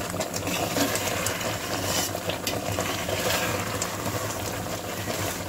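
A steel spoon stirring and scraping thick, bubbling milk in a steel kadhai, with scattered clicks and spits over a steady low hum. The milk has been boiled down almost to khoa and has begun to spatter as it thickens.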